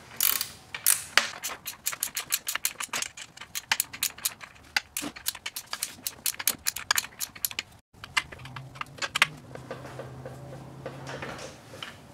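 Ratcheting combination wrench clicking quickly in runs as it tightens a bolt. After a short break about two-thirds through, only a few scattered clicks.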